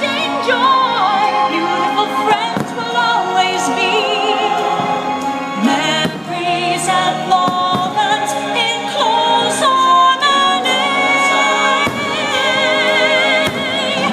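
Fireworks-show soundtrack music with operatic vocals and orchestra, the voices singing long notes with vibrato. A few sharp firework bangs break through the music.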